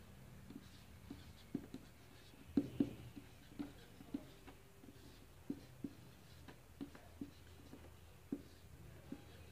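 Marker pen writing figures on a white surface: a string of short, quiet pen strokes and taps, irregularly spaced.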